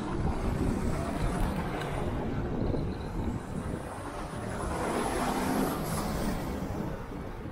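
Wind and road rumble on a bicycle-mounted action camera while riding, with a motor vehicle passing about five seconds in, a faint rising whine above the noise.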